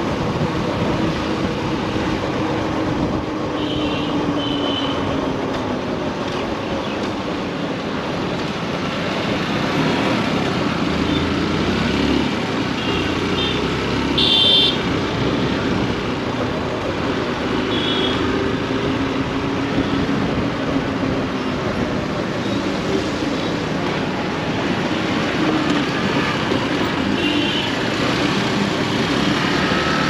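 Riding a motorbike through city traffic: steady road and wind noise with the engine note drifting up and down as it speeds up and slows. A few brief high-pitched sounds cut through, the most prominent about halfway through.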